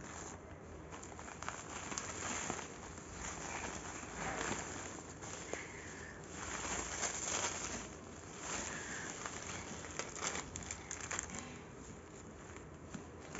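Bubble-wrap packing being pulled open and handled, giving an irregular crinkling and crackling rustle of plastic sheeting.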